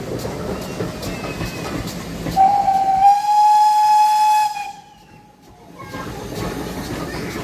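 Steam locomotive whistle giving one steady, high-pitched blast of about two seconds, over the rumble and clicking of a train running on the rails. The running noise drops away briefly just after the whistle.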